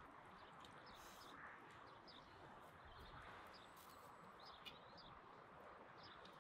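Near silence: faint outdoor air with small birds chirping now and then, short high chirps scattered throughout.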